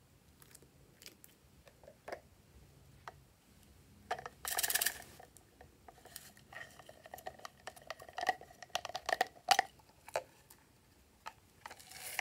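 Close-up handling sounds of slime-making: faint clicks and dabs as a small plastic spatula spreads paint on the slime, a short loud rustle about four seconds in, then a run of plastic clicks and squeaks as a plastic bottle is picked up and handled, tipped over the dish near the end.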